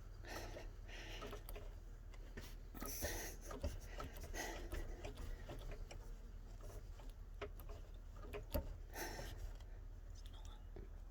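Faint scattered rubbing, rustling and small clicks of hands working at the radiator hoses and clamps, over a steady low hum.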